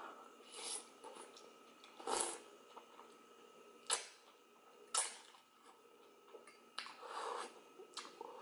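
Close-up eating sounds of cheesy instant ramen noodles: several short slurps with chewing, broken by a few sharp wet smacking clicks.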